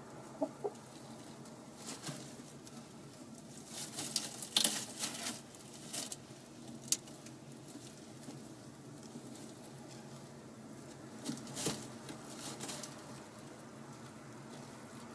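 Hen shuffling in the straw of a nest box, with dry rustling and scratching in two bunches. A couple of short, soft clucks come right at the start.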